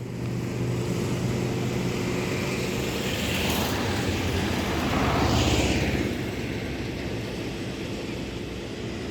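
A steady engine hum, with a passing vehicle that grows loudest about five seconds in and then fades away.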